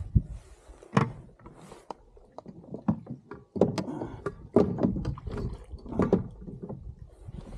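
Irregular knocks and thuds of fishing gear being handled and put away in a small fishing boat, several sharp knocks a second or so apart.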